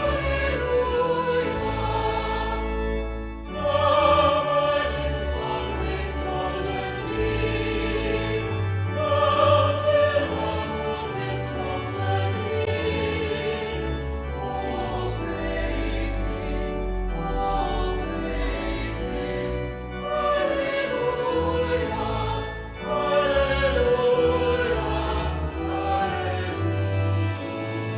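Choir singing sacred music in long, held phrases over a steady low accompaniment, with brief pauses between phrases.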